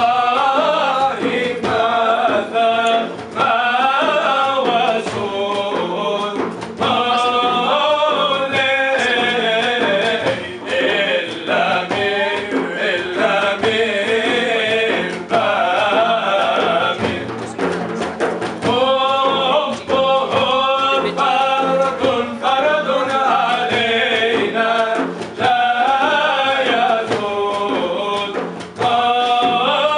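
Several men singing a devotional song (inshad) together, accompanied by a frame drum struck by hand in a steady rhythm.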